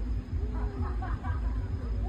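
Low, fluctuating rumble with faint crowd voices talking from about half a second to just over a second in.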